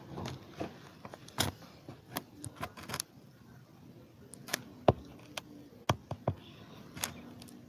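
Irregular small clicks and taps, about a dozen of them spread unevenly over several seconds, over a faint background.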